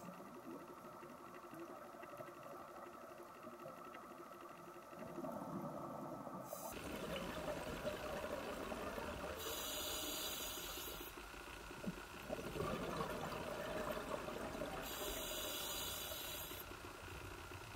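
Muffled underwater ambience with a scuba diver's regulator exhaust: exhaled bubbles hiss out twice in the second half, about five seconds apart.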